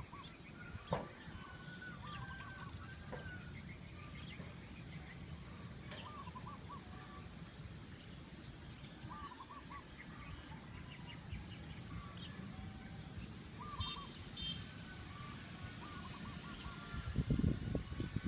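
Several birds calling, with short phrases of three or four quick notes repeated every few seconds and scattered higher chirps, over a steady low rumble. Louder low rumbling bursts come in near the end.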